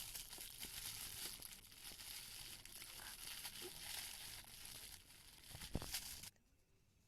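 Wrapping of a toy surprise ball being crinkled and torn open by hand, a continuous crackle of small rustles and snaps with one sharper snap near the end, stopping suddenly about six seconds in.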